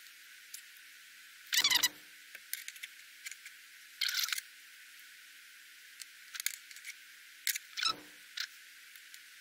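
Small drone hardware being handled: a hex screwdriver, tiny motor screws and a brushless motor click and rattle against the frame as the motor is screwed onto a frame arm. Three short clattering rattles stand out, about a second and a half, four and eight seconds in, among scattered light clicks.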